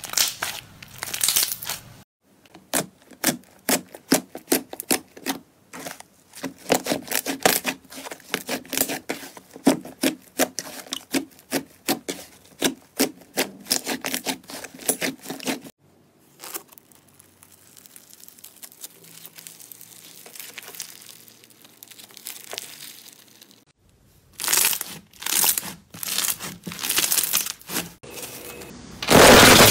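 Slime being squeezed, pressed and kneaded by hand, giving runs of rapid sharp clicks and wet pops with a quieter, sparser stretch in the middle.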